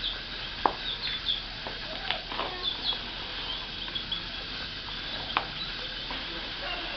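Scattered light clicks and taps, the sharpest about two-thirds of a second in and another past the five-second mark, over faint high chirps and a steady background hum.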